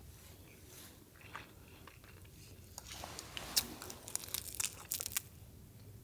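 Crisp crunching and chewing from biting into a seaweed-wrapped kimchi rice ball, faint, with a cluster of sharp crackles in the second half.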